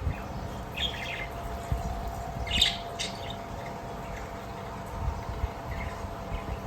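Parakeets giving short, sparse chirps: a quick cluster about a second in and louder chirps a little before the middle, with a few faint ones later.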